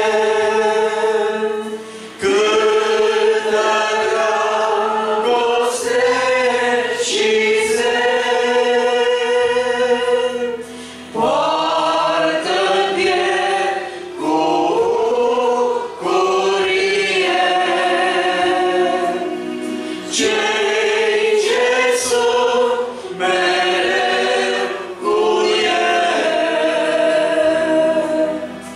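Congregation singing a Romanian hymn together, in phrases of long held notes with short breaks for breath between them.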